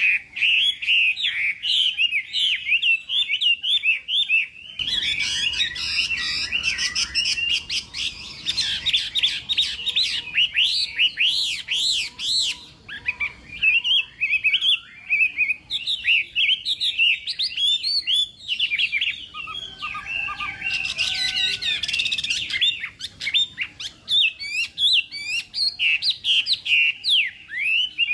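Chinese hwamei singing a continuous, rapid, ever-changing song of loud whistled notes and trills. A brief lower, steadier-pitched sound joins about twenty seconds in.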